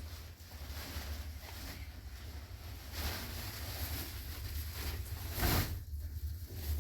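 Wind buffeting the microphone outdoors: a steady low rumble under an even hiss, with a brief louder rush of noise about five and a half seconds in.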